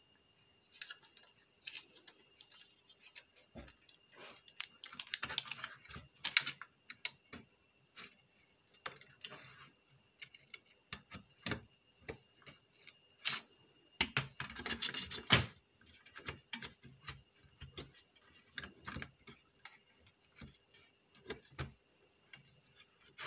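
Scattered clicks, knocks and light metallic clatter as a car stereo's sheet-metal CD drive mechanism is handled and fitted back onto the unit, with busier handling about five seconds in and again about fourteen seconds in. Faint high ticks repeat about once a second in the background.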